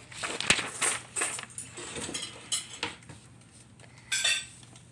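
Handling noise: scattered light clicks, knocks and rustles as a paper book is picked up and held close to the recording device, the sharpest knock about half a second in.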